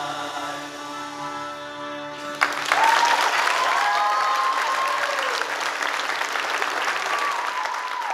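A choir holds a sustained final chord that cuts off sharply about two and a half seconds in. Loud audience applause with whooping cheers breaks out at once and continues.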